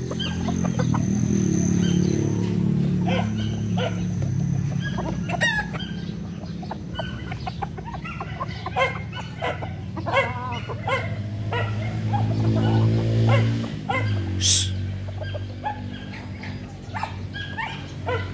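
Gamecock roosters clucking repeatedly over a steady low hum, with one short rustling hiss near the end.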